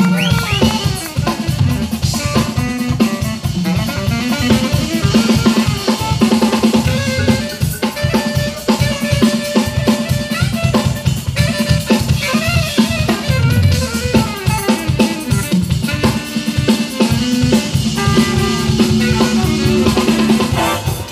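Live jazz band playing: a saxophone carries the melody over electric guitar, drums and congas, with busy, fast percussion throughout.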